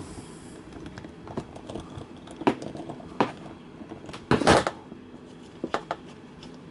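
Scattered metal clicks and knocks of a socket tool working the bolt out of a Honda GCV160 carburetor's float bowl. The loudest is a short cluster of knocks about four and a half seconds in.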